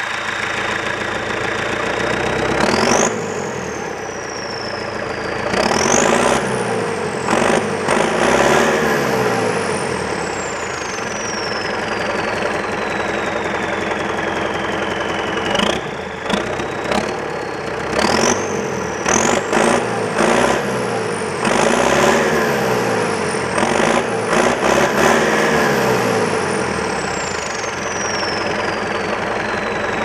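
1982 Leyland 282 tractor's turbocharged diesel engine revved through a straight-through exhaust stack. With each rev the turbo whistle rises sharply, then falls slowly as the turbo spools down. There is a rev about three seconds in, a run of quick revs from about six to nine seconds, and another run of quick revs through the second half.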